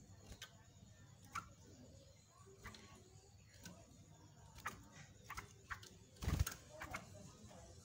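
Faint clicks and taps of a caged yellow-vented bulbul hopping about its perch and wire cage, with one louder thump a little after six seconds in. No song.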